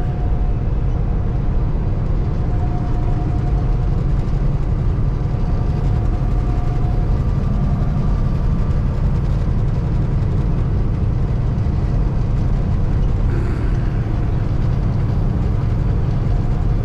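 Inside the cab of a 2016 Kenworth T680 semi cruising on the highway: its Paccar MX13 diesel runs at a steady low drone, mixed with tyre and road noise.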